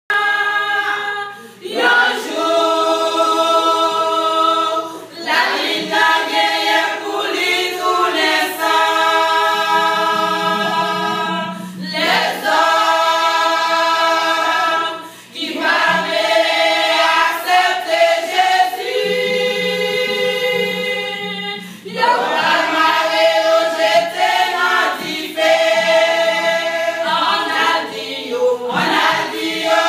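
Women's church choir singing in harmony, holding long chords in phrases a few seconds long with brief breaks between them.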